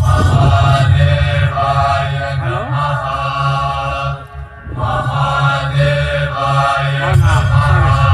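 Devotional mantra chanting by several voices in unison over a low, steady drone. It starts suddenly and breaks off briefly about halfway through before resuming.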